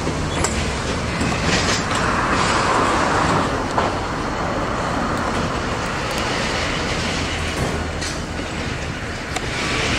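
Norfolk Southern freight train of tank cars rolling past, wheels clicking over the rail joints, over the steady low rumble of its diesel locomotives.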